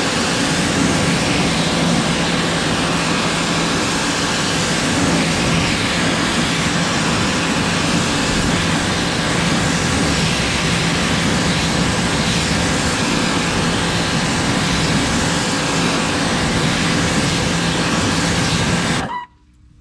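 Pressure washer running steadily, its fan jet spraying an alloy wheel to rinse off wheel cleaner; it cuts off suddenly near the end.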